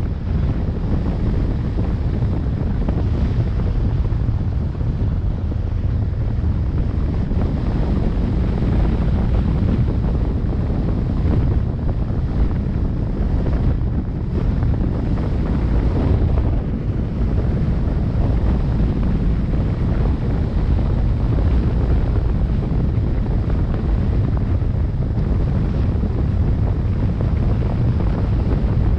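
Loud, steady wind buffeting on the microphone: a continuous low rumbling rush.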